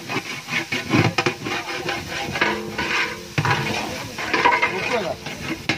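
A metal ladle stirring and scraping sliced onions and tomatoes frying in oil in a large aluminium pot, with repeated clanks against the pot over a sizzle.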